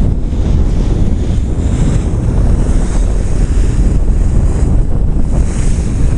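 Wind buffeting the microphone over the wash of the sea: a loud, steady rumbling noise with no pitch to it.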